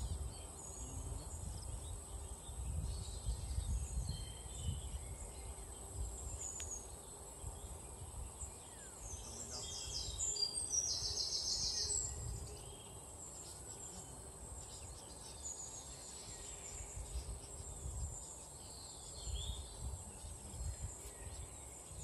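Outdoor ambience of insects and birds chirping over a steady, high-pitched insect drone, with a louder short trill about ten seconds in. A low, uneven rumble sits underneath.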